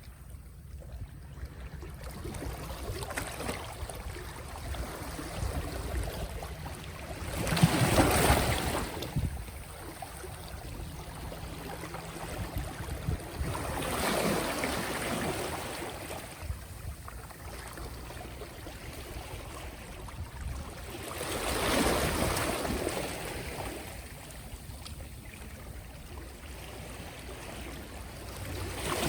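Soft sea waves breaking gently, each wave a slow swell of rushing wash about every six to eight seconds, four times, with a low hiss of water between them.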